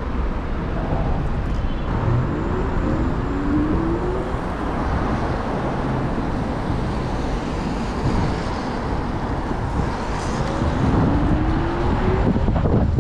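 Rushing wind and tyre noise on a wet road from a bike in motion, with city traffic around it. A low whine rises slowly in pitch twice, about two seconds in and again near the end.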